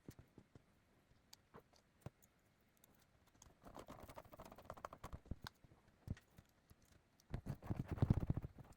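Light clicking and rattling of small laptop parts and tools being handled during a repair, with a quick run of clicks around four to five seconds in and a louder, denser run near the end.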